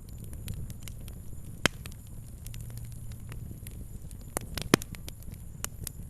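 Wood fire crackling: a steady low rumble of burning, broken by scattered sharp pops, the loudest about one and a half seconds in and again between four and five seconds in.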